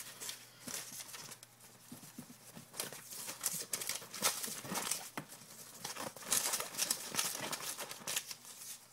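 Folded paper raffle slips rustling and crinkling as a hand stirs them around in a container, in many irregular bursts.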